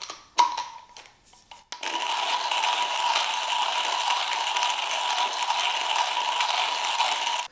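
Comandante C40 hand coffee grinder being cranked, grinding coffee beans at a fine setting: a steady crunching whirr that starts about two seconds in. Before it, a few clicks and a sharp knock as the crank handle is fitted.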